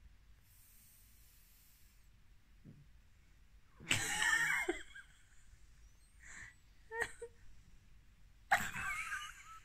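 A sleeping Pekingese, a flat-faced breed, making wheezy, high-pitched breathing noises: two loud bursts about four and eight and a half seconds in, with a shorter one between.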